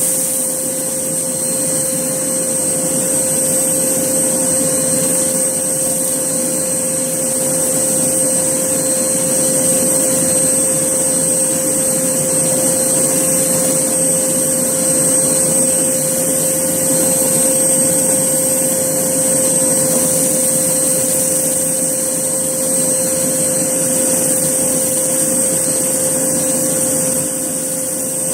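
Hoover Blaze canister vacuum cleaner running steadily with its carpet head on, a constant motor hum with a high whine over a rushing airflow.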